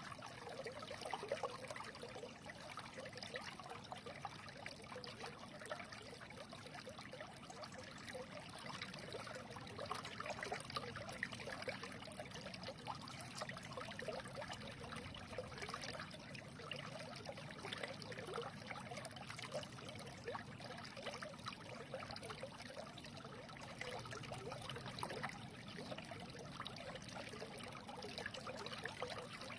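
Small stream running over stones, a steady trickling and babbling of water.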